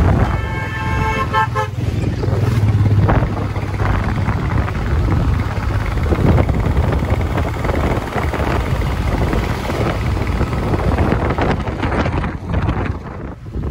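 A vehicle horn honks in short toots for about the first second and a half, over the steady running of a Royal Enfield Himalayan's single-cylinder engine with road and wind noise on the move.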